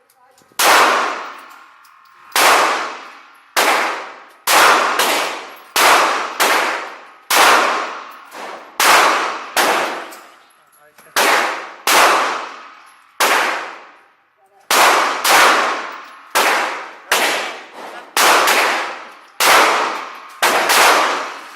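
Glock 17 9mm pistol fired in a long string of about twenty shots at an uneven pace, each shot followed by a long ringing tail.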